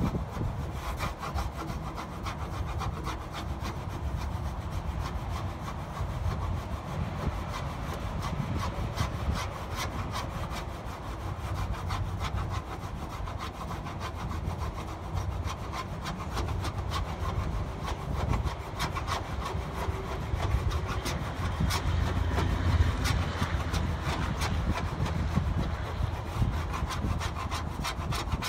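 Plastic scraper scratching in quick, short, repeated strokes across a stainless steel sheet, peeling off sun-baked protective film.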